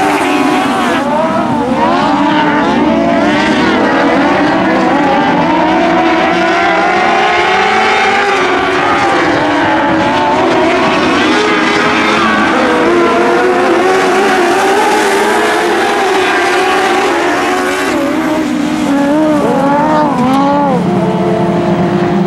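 A pack of dwarf race cars running together, their small motorcycle engines overlapping at several pitches that rise and fall with the throttle.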